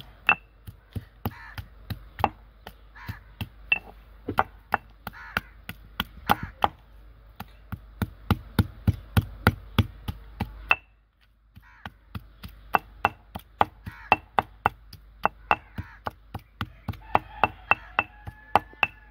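Chopped boneless chicken being pounded into fine mince: sharp repeated strikes, about three a second, with a short pause about eleven seconds in.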